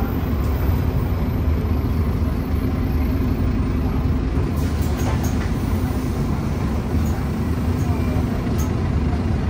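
Scania OmniCity bus heard from inside, with a steady drone from its diesel engine and engine cooling fan under a haze of road noise.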